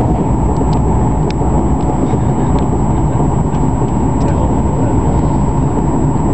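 Passenger train running steadily, heard on board: a constant low rumble of the running train, with a few faint light clicks and rattles.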